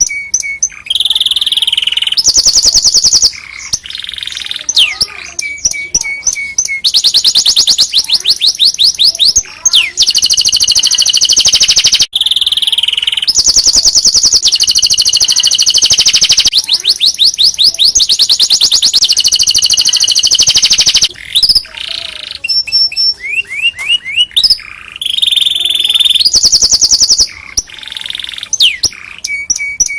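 Domestic canary singing loudly in long phrases of fast trills and rapid repeated notes, broken by short pauses.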